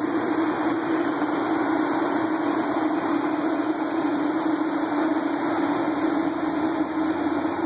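Steady machine hum: a constant low drone under an even rushing noise.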